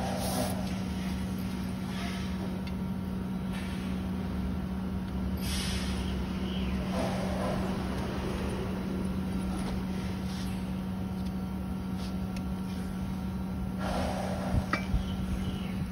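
Steady low background hum, over which plastic bags of bolts and fittings rustle briefly a few times as swing-chair hardware is sorted. A few sharp clicks near the end as the steel frame tubes and fittings are handled.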